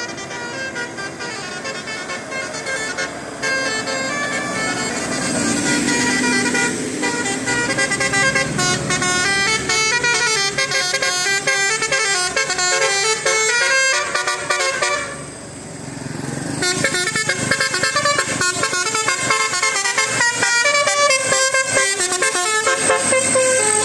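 A tour bus's telolet musical horn playing a melody of quickly changing notes, with a brief pause about fifteen seconds in.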